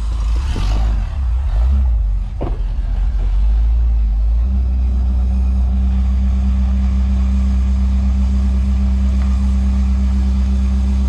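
Engine idling with a low rumble: uneven for the first few seconds, with a single knock about two and a half seconds in, then settling into an even, steady drone about four seconds in.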